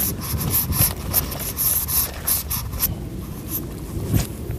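Rubbing and scraping handling noise close to a body-worn camera's microphone as the angler's arms and clothing move against it, with a steady low rumble underneath. There is a stronger single knock about four seconds in.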